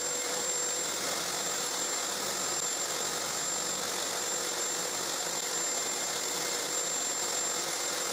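Table saw running steadily with a high, even whine while shallow passes are made to clear a hinge mortise in a wooden box lid.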